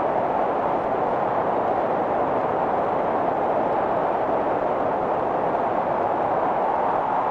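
Steady, even roar of aircraft engines, with no separate explosion blasts standing out.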